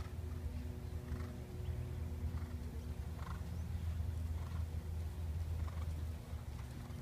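Faint sounds of a dressage horse working at trot: short, soft noises every half second to a second. They sit over a steady low hum that drops away about six seconds in.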